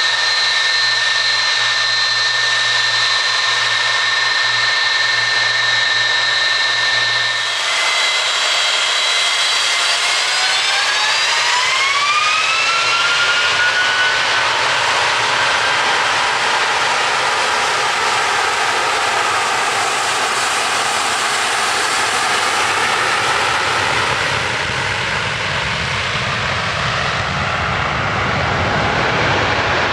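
Jet airliner's engines whining steadily at low power, then spooling up with a rising whine from about eight seconds in, followed by the loud, steady rush of takeoff thrust as the aircraft begins its departure roll.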